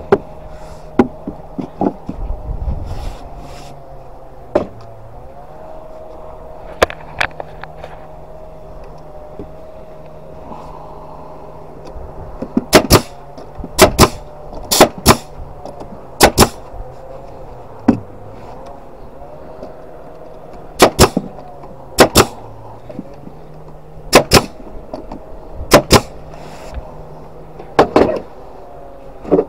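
Pneumatic brad nailer driving nails into pine boards: a series of sharp shots, often two in quick succession, from about 13 seconds in, over the steady hum of a small air compressor running. A few wooden knocks come earlier as boards are set in place.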